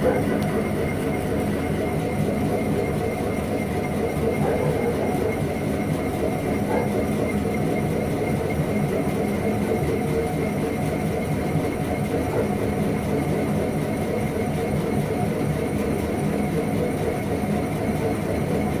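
Myford ML7 lathe running steadily during a boring cut, a constant machine hum with a faint steady high whine.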